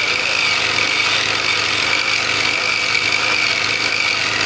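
Abrasive disc rail cutter grinding through a steel railway rail, a steady whine from disc on steel over the machine's low hum.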